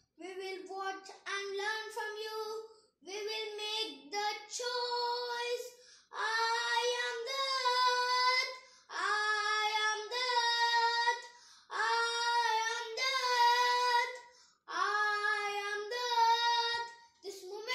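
A young child singing alone, unaccompanied, in phrases of one to three seconds with short breaths between them. The notes are held and longer from about six seconds in.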